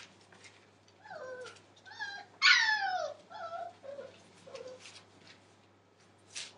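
Five-week-old Entlebucher Mountain Dog puppy whining and yelping: several short cries falling in pitch, the loudest a long downward whine about two and a half seconds in. A short scratchy noise comes near the end.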